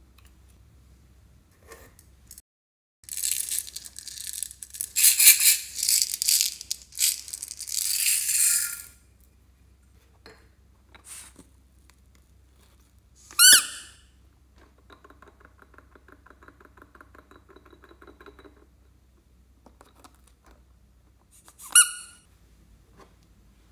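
Crackling noise of hands working soft slime for several seconds, then a squeezed rubber spiky ball toy squeaking sharply twice, with a buzzing rattle of about three seconds between the squeaks.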